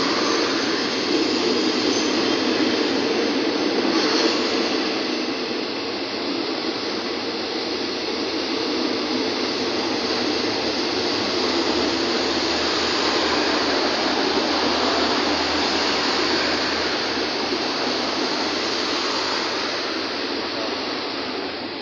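Passenger train coaches rolling past close by on the track, a steady loud rolling noise that eases near the end as the last coach goes by.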